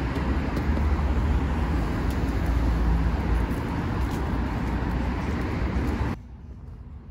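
City street traffic noise: motor vehicles running on the road, a steady rush with a heavy low rumble that cuts off suddenly about six seconds in.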